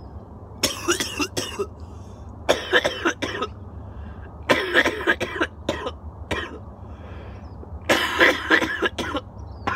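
A man coughing hard into his elbow in four fits of several coughs each, brought on by a large bong hit.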